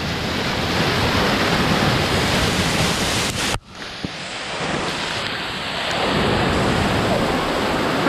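Waterfall rushing over basalt columns into a rocky stream, a steady loud roar of falling water that cuts out for a moment about three and a half seconds in, then resumes.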